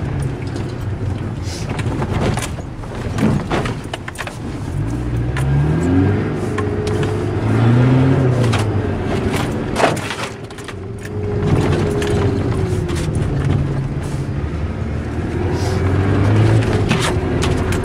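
Mitsubishi Pajero's 2.5-litre diesel engine heard from inside the cabin, revving up and dropping back several times as it is driven over rough ground. Short knocks and rattles from the body and suspension run through it, with one sharp bang about ten seconds in.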